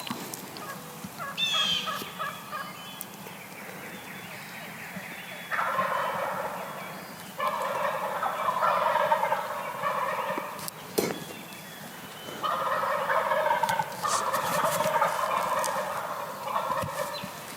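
Wild turkey gobblers gobbling again and again: about five rattling gobbles, some running into one another as more than one tom sounds off.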